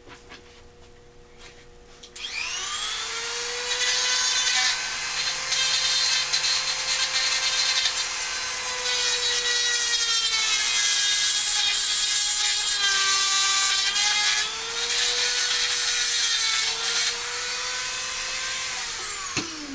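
A power grinder spins up about two seconds in and grinds the mushroomed ends of the throttle-plate screws flush on a Rochester B one-barrel carburetor throttle body. It grinds in several passes, its pitch sagging under load, and winds down near the end.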